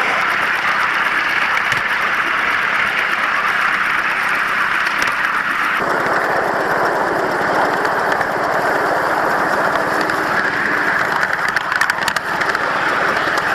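Ride-on miniature steam locomotive running along the track: a loud, steady rushing noise of the engine on the move, which changes abruptly in tone about six seconds in.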